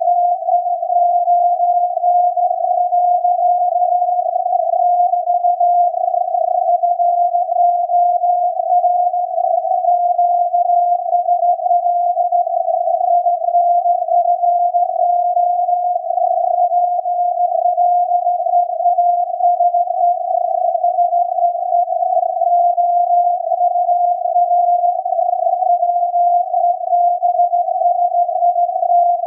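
Very-low-frequency radio signal from SAQ's Alexanderson alternator on 17.2 kHz, heard through a software-defined radio receiver as a Morse beat tone near 700 Hz in a narrow band of static. It is the hand-keyed Morse message.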